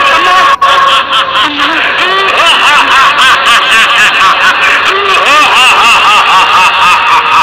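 High-pitched snickering laughter: a quick run of rising-and-falling notes, repeated throughout.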